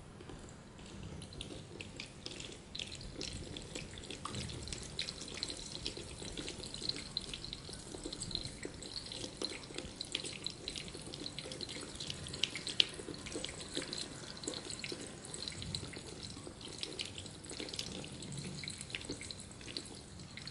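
Water running and gurgling through a pipe, with a continuous crackle of small drip-like ticks and pops and an uneven low rumble beneath, and one sharper pop about two-thirds of the way through.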